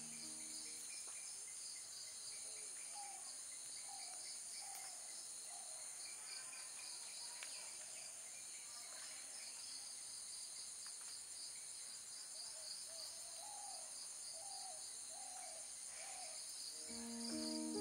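Steady high-pitched chorus of insects such as crickets or cicadas, with a bird calling twice in runs of short, low curved notes.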